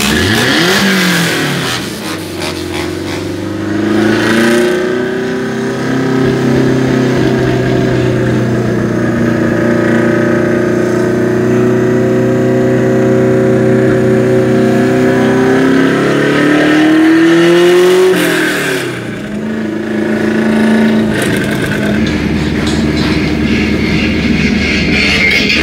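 Toyota Corolla KE35's four-cylinder engine and exhaust, heard loud from inside the cabin while driving. Its pitch rises, holds steady for several seconds, climbs again and then drops away sharply about eighteen seconds in before settling.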